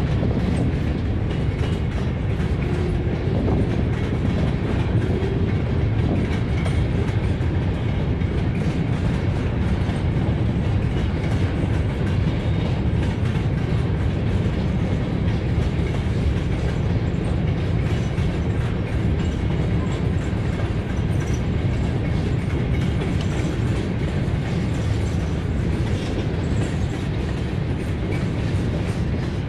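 Freight train cars (tank cars, covered hoppers and a boxcar) rolling steadily past: a continuous low rumble of steel wheels on the rails.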